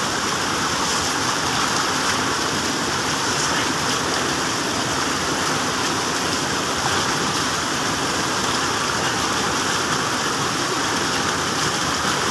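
Mountain spring water pouring down a rock face and splashing close by, a steady rushing splatter as it is scooped onto a face.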